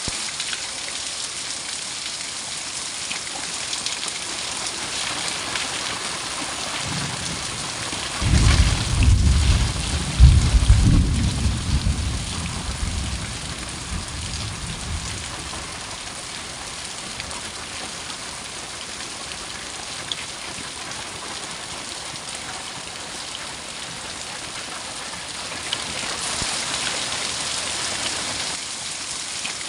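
Heavy rain falling steadily, with a peal of thunder rumbling in about eight seconds in and dying away over several seconds. The rain grows heavier near the end.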